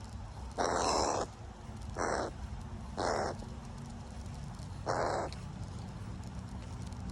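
A crow cawing four times, harsh calls of about half a second each, the first the longest.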